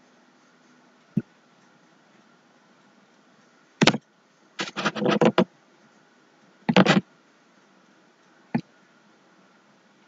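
Sharp clicks and knocks over a faint steady hum: a light one about a second in, a loud one near the middle followed by a quick rattling cluster, another loud one a little later, and a light one near the end.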